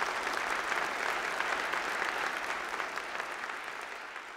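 Audience applauding, a dense steady clapping that slowly fades toward the end.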